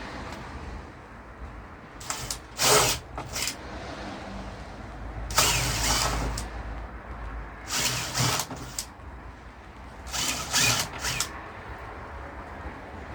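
Power drill running in four short bursts of about a second each, drilling holes and driving screws to fix hinges to a door.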